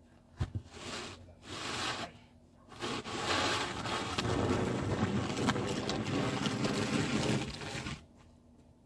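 Snow shovel blade scraping over snowy pavement: a knock as the blade goes down, two short scrapes, then one long scrape of about five seconds as snow is pushed along, cut off suddenly near the end.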